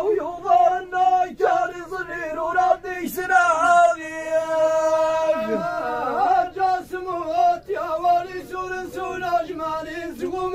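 A man's voice chanting Amazigh (Tamazight) verse in the inshaden style, in short melodic phrases, holding one long note about four seconds in before returning to shorter phrases.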